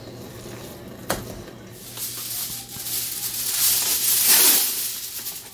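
A sharp knock about a second in, then a hiss that swells for a couple of seconds and fades: a live charcoal sizzling as the chicken kebab mince is given a charcoal smoke (dum).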